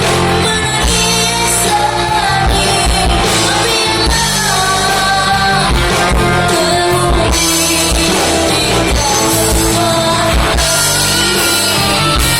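A band playing a pop-rock song, with guitar, bass and drums under a melody line that bends in pitch.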